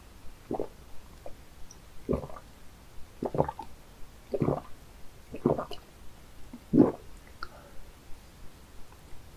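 Close-miked gulps of a person drinking water from a glass: about six swallows, roughly one a second.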